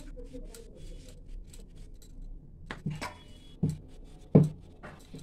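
A wooden rolling pin rolling bhatura dough on a round rolling board (chakla-belan): a faint scratchy rolling sound, then, from a little over halfway, several short irregular knocks of the pin and board.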